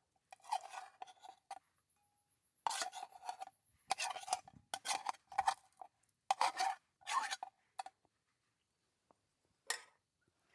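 A utensil scraping on a dish in a series of short strokes, with a pause and one last stroke near the end.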